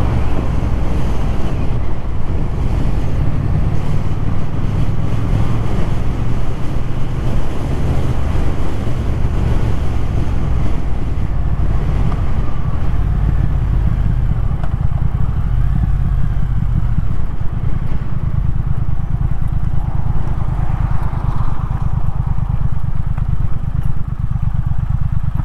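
Triumph Thruxton R's 1200 cc parallel-twin engine running steadily while under way, with wind rushing over the microphone.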